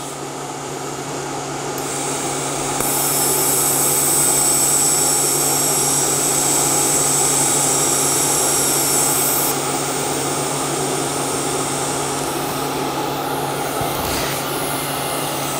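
TIG (GTAW) welding arc on thin titanium: a steady hiss over a low electrical hum that gets brighter and louder about three seconds in, runs for about six seconds, then drops back when the arc is broken. What is left is a steadier hiss with the hum, as argon post-flow keeps shielding the cooling weld and filler wire.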